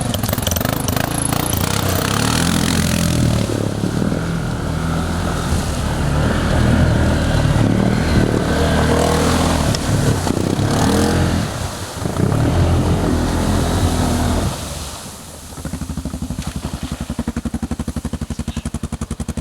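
ATV engine running under changing throttle as it works over an obstacle course, rising and falling in pitch, then dropping to a steady idle for the last few seconds.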